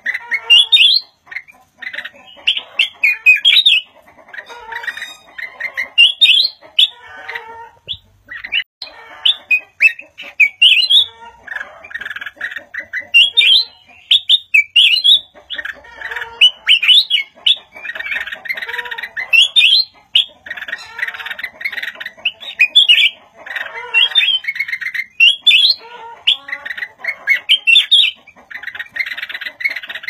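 Black-crested bulbul singing: short, bright, warbled phrases repeated every second or two.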